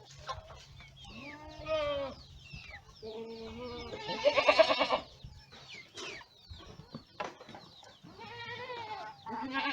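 Boer goats bleating, several quavering calls overlapping one another, the loudest about four to five seconds in.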